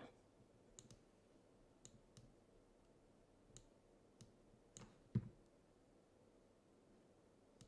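Near silence broken by faint, irregular clicks at a computer, about eight of them spread over several seconds. The one about five seconds in is a little louder, with a dull knock.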